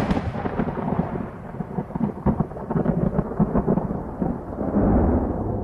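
Thunder sound effect: a sharp lightning crack followed by a heavy rolling rumble with crackles, cutting off suddenly at the end.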